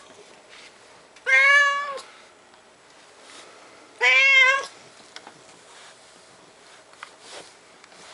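Domestic cat meowing twice, two long calls about two and a half seconds apart; the second bends up in pitch and wavers.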